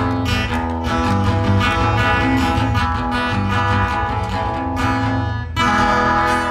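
Acoustic guitar strummed in steady chords; about five and a half seconds in a fresh chord is struck and left to ring.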